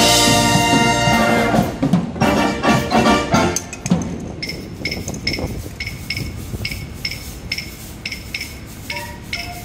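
Student brass band playing: full, loud brass chords with drums for about the first four seconds, then the brass drops away and leaves a steady percussion tap about twice a second, with mallet-percussion notes coming in near the end.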